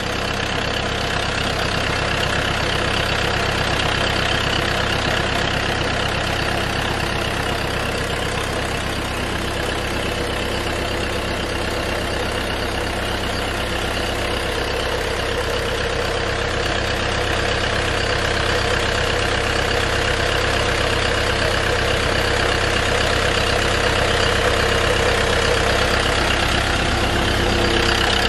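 Massey Ferguson tractor's diesel engine running steadily under load, belt-driving two tubewell pumps, with water gushing from the outlet pipes into the channel.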